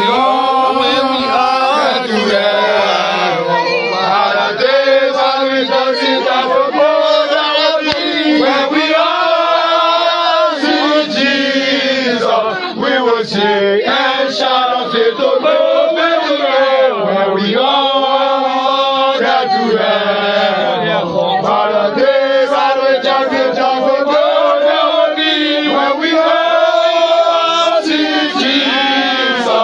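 A crowd of mourners singing a chant together on long held notes, loud and continuous.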